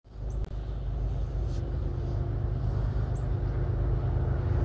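Approaching freight train's diesel locomotives, a low steady rumble with a faint steady hum, growing slowly louder as the train draws near.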